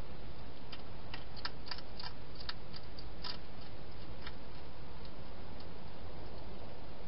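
Wild hedgehog eating from a bowl inside a plastic feeding box: a quick, irregular run of small clicks for a couple of seconds, then a few scattered ones, over a steady hiss.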